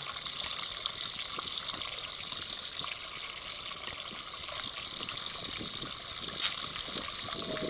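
Water trickling and flowing steadily in a narrow rock-cut channel, with a sharper click about six and a half seconds in.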